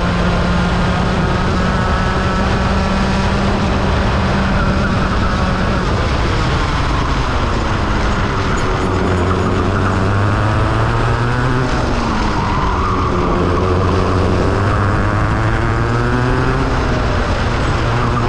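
Rotax Mini Max 125 cc two-stroke kart engine at racing speed, its pitch falling off and climbing again several times as the kart slows for corners and accelerates out.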